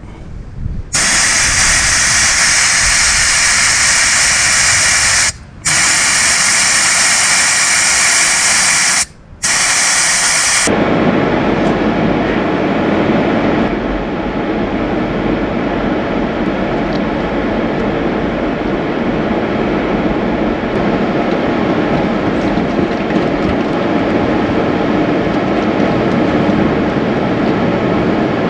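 Air hissing hard out of a Toyota Prado's tyre valve as the tyre is let down for beach driving, stopping briefly twice. About ten seconds in it gives way to the steady drone of the 4WD driving, heard from inside the cabin.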